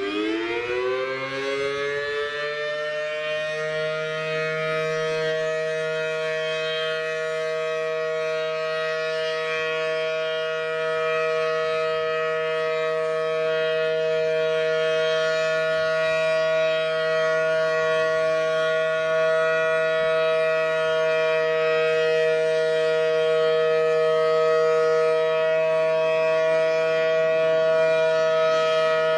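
Federal Signal Model 5T outdoor warning siren sounding a test: it winds up in pitch over the first few seconds, then holds a steady, loud two-note wail.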